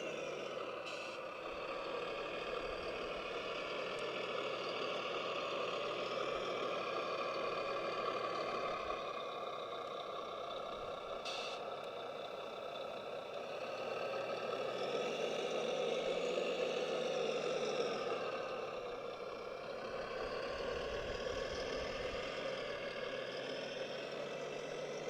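Radio-controlled model truck running, a steady engine-like drone. It rises in pitch for a few seconds past the middle, then settles back.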